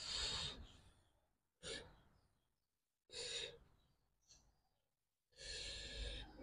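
A man puffing breath out through his mouth four times, faintly, the last puff the longest, as he eats food that is still hot.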